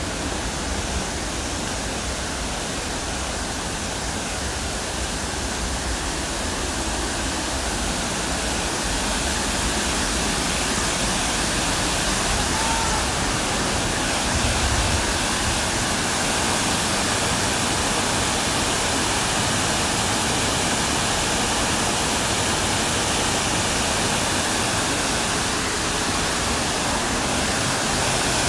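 Waterfall: a steady rush of falling water, growing slightly louder partway through.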